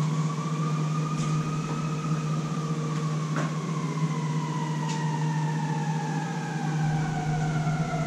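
A siren wailing slowly: its pitch peaks about two seconds in, then falls over several seconds and starts to rise again near the end. A steady low hum runs underneath.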